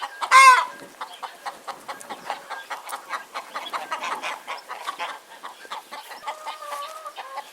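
Chicken clucking over and over, with a loud squawk about half a second in and a longer, wavering call near the end.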